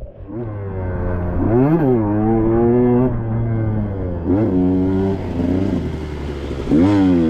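Two-stroke engine of a 2021 KTM 125XC dirt bike pulling under riding load, its pitch rising sharply three times as the throttle is opened and settling back between.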